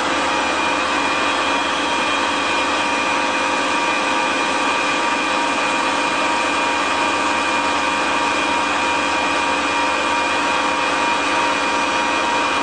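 Dainichi CNC lathe running with its spindle turning, which the operator thinks is at about 900 RPM: a steady mechanical whine with several high tones held constant throughout.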